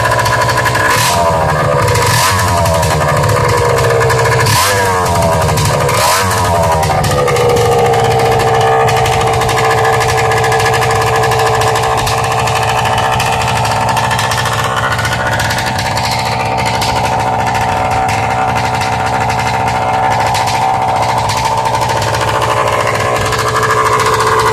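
Motorized bicycle's 48 mm two-stroke kit engine revved in about four quick throttle blips, each rising and falling away, then settling to a steady idle.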